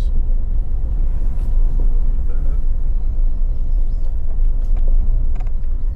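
Off-road vehicle driving slowly on a rough dirt trail: a steady low rumble of engine and drivetrain, with a few short knocks and rattles from the vehicle over bumps.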